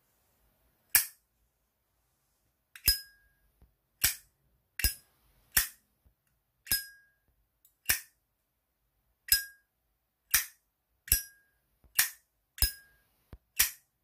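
Zippo 1941 Replica brass lighter's hinged lid snapped open and shut over and over: about a dozen sharp metallic clacks roughly a second apart, every other one or so followed by a short ringing ping.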